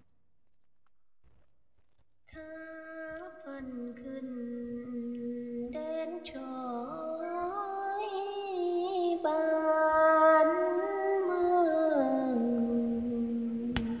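A woman singing a Tày phong slư folk song, long held notes with slow wavering glides, starting about two seconds in after near silence.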